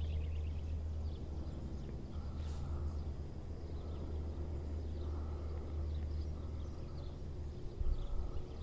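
Steady low wind rumble buffeting a handheld voice recorder's microphone.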